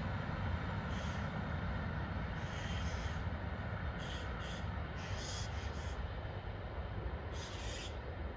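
Long container train behind a Traxx AC2 electric locomotive, receding into the distance as a low, steady rumble. Short, harsh bird calls come over it every second or two, a couple of them in quick pairs.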